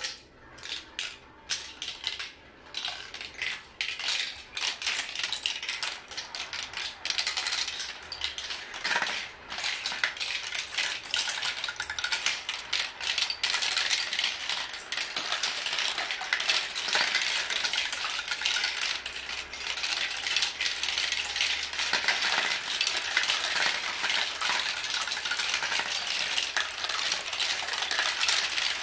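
Glass marbles rolling and clattering down a tall plastic marble-run tower. A few separate clicks at first, then a dense, continuous rattle as many marbles run through the tracks at once.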